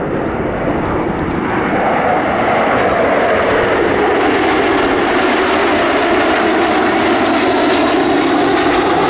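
Jet noise from a formation of seven Aero L-39 Albatros trainers, each powered by a single turbofan, flying past. The rushing engine noise swells over the first couple of seconds, then holds loud and steady, its tone drifting slowly as the jets pass.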